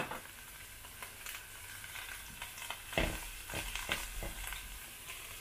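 Shredded boiled chicken sizzling in a wok of frying spice paste as a spatula stirs it in, with a run of spatula scrapes and knocks against the pan about three seconds in.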